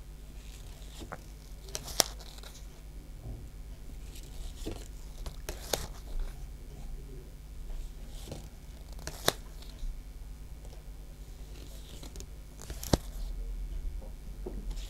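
Pokémon trading cards being flipped through one at a time in gloved hands: a sharp flick of card stock every three to four seconds, with soft rustling of the cards and gloves between.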